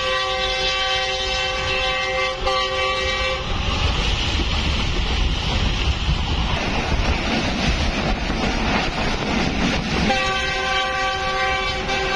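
Train horn sounding two long, steady blasts, one ending about three seconds in and the next starting about ten seconds in, over the continuous rumble of the moving train.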